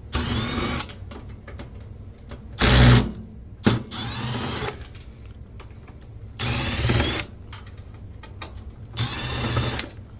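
Power drill backing screws out of a computer case in five short runs of the motor, each a second or less, the loudest about three seconds in. Small clicks and rattles come between the runs.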